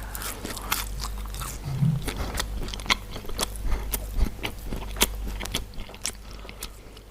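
Close-miked eating: a person biting and chewing crunchy food, a string of sharp crunches at irregular intervals.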